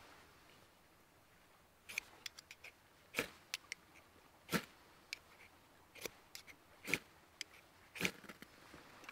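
Ferrocerium rod scraped hard with a striker, a dozen or more short, sharp rasping strokes at uneven intervals starting about two seconds in, throwing sparks onto a fire plug tinder until it lights near the end.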